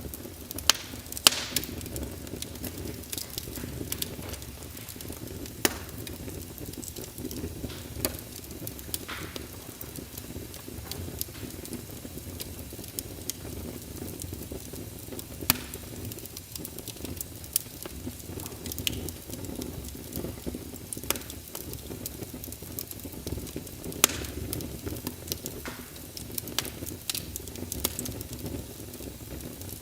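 Wood fire burning in a fireplace: a steady low rumble of flame under irregular sharp crackles and pops, some much louder than the rest.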